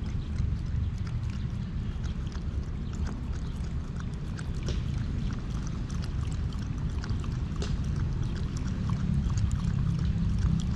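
A dog lapping water from a plastic bowl: many quick, irregular splashy laps over a steady low rumble.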